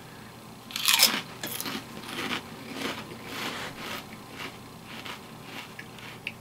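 Person biting into a kettle-style potato chip: one loud crunch about a second in, then chewing crunches at roughly half-second intervals that fade away.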